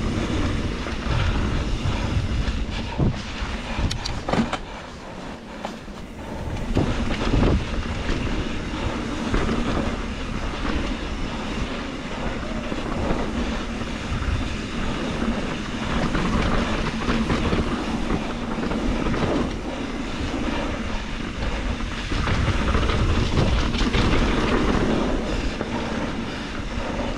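2021 Trek Slash 7 full-suspension mountain bike riding down a dirt flow trail: steady tyre rumble over the dirt with frequent irregular rattles and clattering knocks from the bike.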